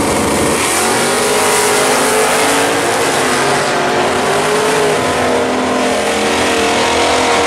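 Two drag-racing cars launching off the start line about half a second in, then running at full throttle down the strip. The engine pitch climbs slowly as they pull away.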